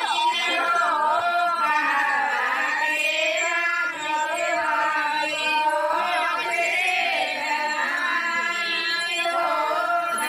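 A group of women singing together, several voices holding long, unbroken sung lines.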